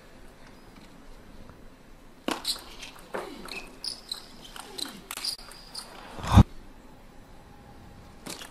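A table tennis rally: the ball clicks off the bats and table and shoes squeak on the court floor, starting about two seconds in. About six seconds in comes one heavy thump, the loudest sound.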